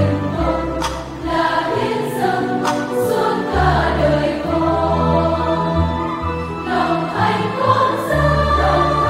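Choir of Dominican sisters singing a Vietnamese Catholic hymn in many voices, with sustained low notes underneath.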